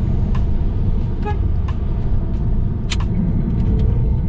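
Car interior road noise while driving: a steady low rumble of engine and tyres, with a few short clicks scattered through.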